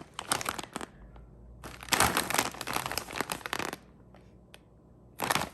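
Plastic snack packaging crinkling as it is handled, in several rustling bursts with the longest in the middle.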